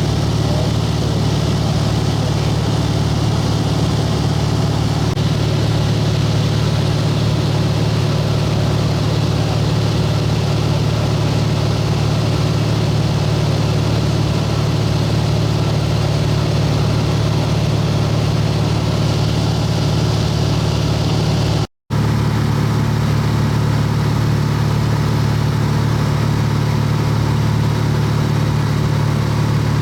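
A light aircraft's piston engine and propeller droning steadily, heard from inside the cabin, with a deep, even hum. The sound drops out for an instant about two-thirds of the way through, then carries on unchanged.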